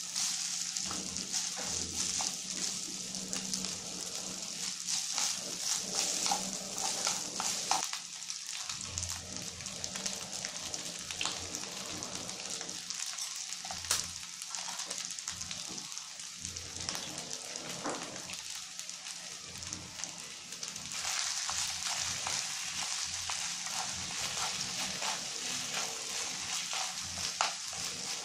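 Cooked rice frying in a pan, a steady sizzle with small clicks and scrapes of wooden chopsticks stirring it against the pan. The sizzle gets louder in the last third, as raw egg is stirred through the rice.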